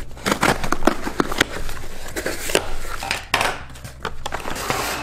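Scissors blades clicking and scraping as they slice the packing tape on a cardboard box, then the cardboard flaps being pulled open with rough scraping and tearing.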